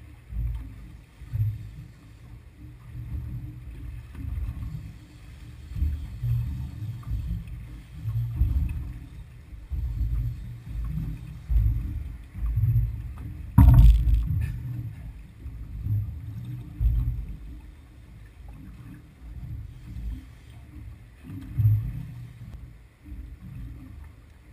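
Choppy water slapping against a small boat's hull, a low uneven rumble that surges every second or two. One sharp knock sounds about halfway through.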